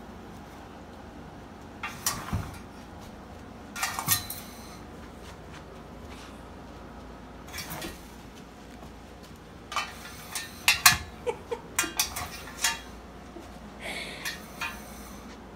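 Metal muffin tin clanking and rattling as a dog noses at it to get treats out from under tennis balls: irregular sharp clanks in small clusters, busiest a little past the middle.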